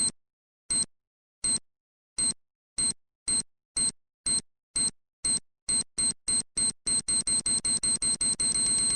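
Time-bomb countdown beeps: short high-pitched electronic beeps of one pitch that speed up steadily, from under two a second to a rapid run that nearly merges into a steady tone just before the end, signalling imminent detonation.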